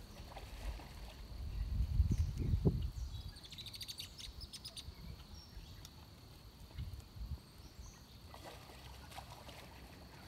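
Outdoor ambience with a low rumbling noise on the microphone peaking about two to three seconds in, and birds chirping, including a quick run of high ticks about four seconds in.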